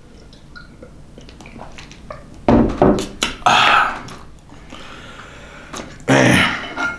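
A glass bottle set down with a thunk, then a man's loud breathy exhales, one right after the thunk and another near the end.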